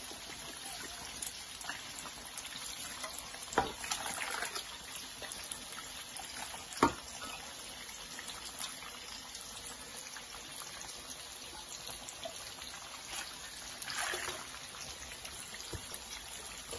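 Soaked basmati rice poured from a metal bowl into a large pot of nearly boiling water, over a steady watery hiss. A spoon scraping the bowl makes a few sharp metal clinks, the loudest about seven seconds in.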